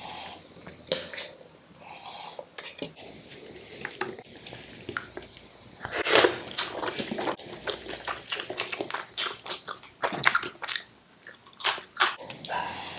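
A person eating chickpea curry and pea pulao by hand, close to the microphone: a loud mouthful at about six seconds, then steady chewing with many small mouth clicks.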